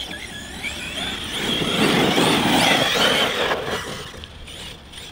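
ARRMA Kraton 6S RC truck driving: the brushless motor's whine wavering up and down in pitch over tyre and chassis noise, swelling about a second in and fading away near the end.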